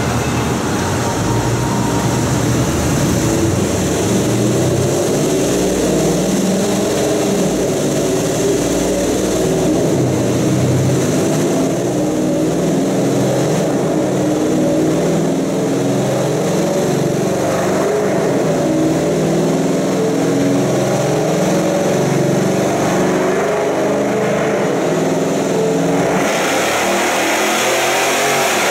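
A 2015 Ram 1500's 5.7L Hemi V8, fitted with JBA long-tube headers and a mid-pipe, running on a chassis dyno. The exhaust note is loud and steady throughout.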